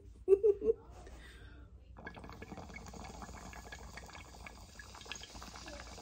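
A few short, loud sounds right at the start, then water bubbling inside a glass bong as smoke is drawn through it, starting about two seconds in and stopping just before the end. The bong holds too much water, by the smoker's own account.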